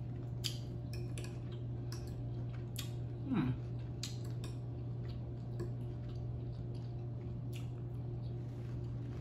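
A metal fork clicking and scraping against a glass bowl as shrimp ceviche is picked up, in scattered small clicks over a steady low hum. About three seconds in there is a brief downward-sliding sound.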